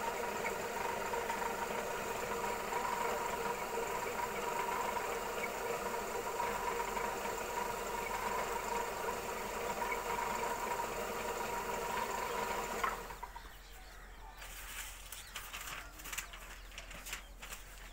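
Motor-driven warp beam winding machine running with a steady hum and whine as it winds thread onto the beam, then stopping suddenly about thirteen seconds in. After that only a few light clicks and taps remain.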